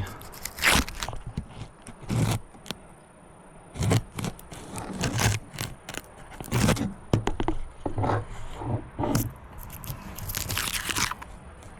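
Irregular scrapes, clicks and knocks of hard objects being handled and shifted about, a dozen or so short sounds at uneven intervals.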